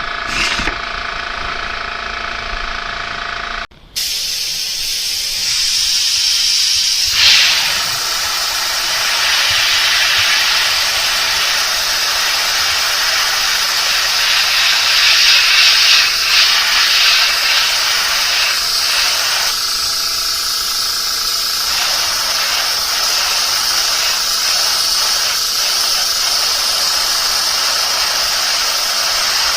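A steady motor hum that stops abruptly about four seconds in, then a steady hiss of spraying air, swelling a little in the middle.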